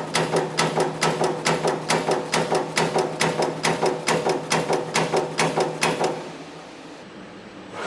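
Servo CNC turret punch press cycling its ram, striking at about four strokes a second over a steady machine hum. The strokes and hum stop about six seconds in.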